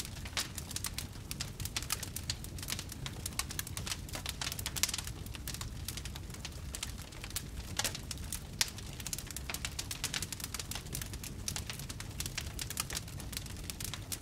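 Wood fire burning in a fireplace: a steady low rumble under dense, irregular crackles and sharp pops.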